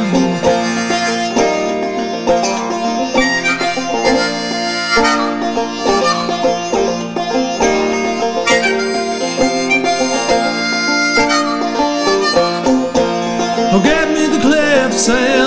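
Instrumental break of a folk tune: a diatonic harmonica played straight harp (first position) carrying the melody over clawhammer banjo.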